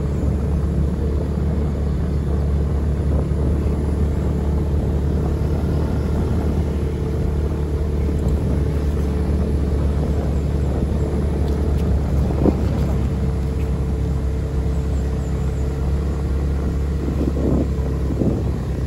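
Car driving along: a steady low engine and road rumble.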